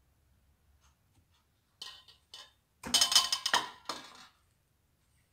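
A metal wire cooling rack on a plate being set down on a granite counter: a couple of light clinks, then a loud clatter about three seconds in and a last knock just after.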